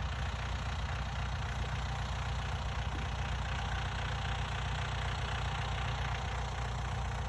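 Vehicle engine idling steadily, a low even hum with no change in speed.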